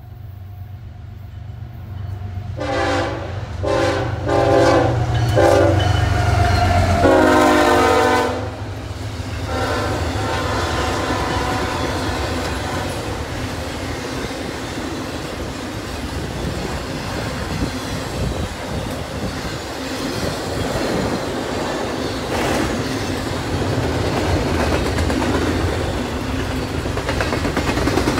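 GE ES44AH diesel locomotive leading a CSX intermodal train sounds its air horn in four blasts over the rumble of its diesel engine: long, long, short, and a last one held longest, the standard grade-crossing signal. After that the double-stack and trailer well cars roll past close by with steady wheel and rail noise and clickety-clack over the rail joints.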